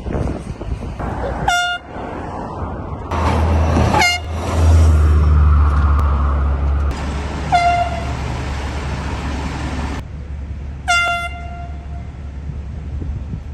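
Handheld canned air horn blown in four short blasts a few seconds apart, each a brief, loud, single-pitched blare. A low vehicle rumble runs underneath from about three to ten seconds in.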